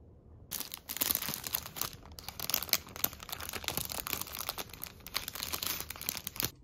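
Clear plastic bag crinkling and crackling as a bagel inside it is handled. It is a dense run of crisp crackles that starts about half a second in and stops abruptly near the end.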